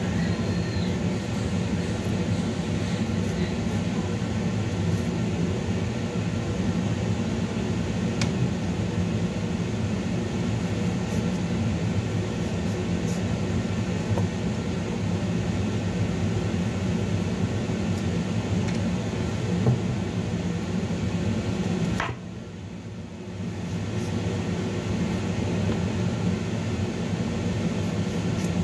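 A steady low mechanical hum, with a few faint clicks. The hum drops away for about a second and a half some 22 seconds in, then returns.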